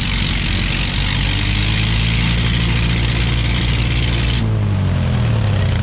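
Suzuki KingQuad 750 ATV's single-cylinder engine held at full throttle with its wheels spinning free in a mud rut, so they reach top speed without the quad moving, with a hiss of mud spraying from the tyres. About four and a half seconds in, the spray noise cuts off and the revs fall away.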